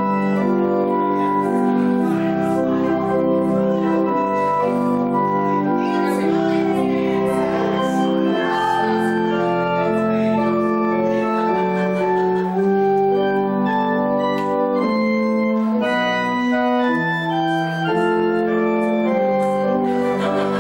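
An organ playing slow music in held chords, the notes changing every second or two.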